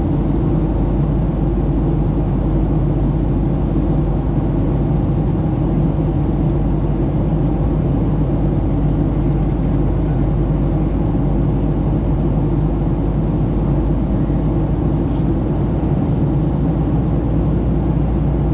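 Steady cabin noise of a Boeing 737-700 climbing after takeoff: the low drone of its CFM56-7B turbofans and airflow, heard from a window seat beside the wing. A brief high click sounds once about fifteen seconds in.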